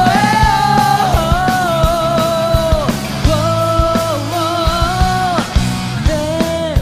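Rock band playing: a male voice sings long held notes over electric guitars and a steady drum beat.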